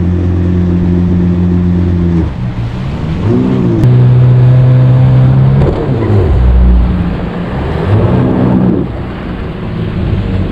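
Yamaha WaveRunner FX jet ski engine at low speed: a steady note for about two seconds, then revved up and let back down a few times in short bursts as the ski creeps through shallow water.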